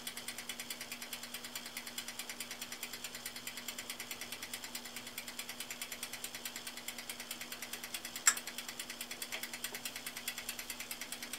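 Toaster oven running as a reflow oven: rapid, even ticking, typical of its wind-up mechanical timer, over a steady low hum, with one sharper click about eight seconds in.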